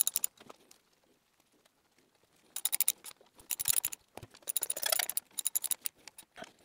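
Ratchet wrench clicking in several short bursts of rapid clicks as bolts are snugged down on an engine's front plate. The bursts come mostly in the second half.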